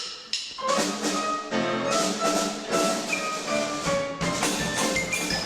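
Orchestral music with xylophone-like mallet notes and wood-block hits, playing quick, short, stepping notes.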